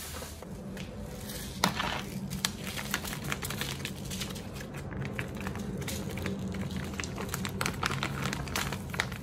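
Millet grains pouring from a crinkling plastic bag into a plastic basin, a dense patter of small clicks and rustles as the bag is handled, with one sharp knock about a second and a half in.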